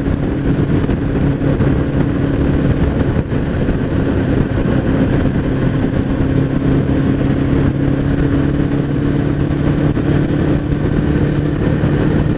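Suzuki Bandit motorcycle cruising at a steady speed, its engine note holding an even pitch under heavy wind rush on the microphone. The rider finds it running better and more responsive on the throttle since its fuel filter was changed.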